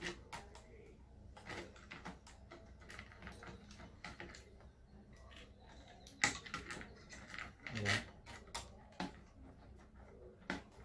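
Scattered light clicks and knocks of a CPU cooler's metal heatsink and plastic fixings being handled and pressed down onto a motherboard, sparse at first and busier and louder after the middle.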